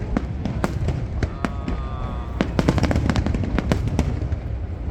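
Aerial fireworks going off: a rapid run of sharp bangs and crackles, densest in the second half, over a steady low rumble.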